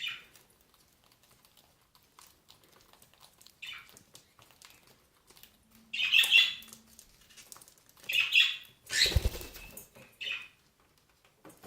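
Cockatiels giving short chirps and squawks several times, with a burst of wing flapping about nine seconds in and faint clicks of pecking at food between the calls.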